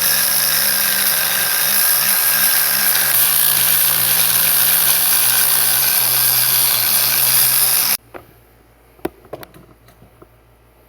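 Warrior 4.3 amp angle grinder with a flap disc running under load, sanding welding slag off steel in a steady loud grind. It cuts off suddenly about eight seconds in, leaving a few light knocks.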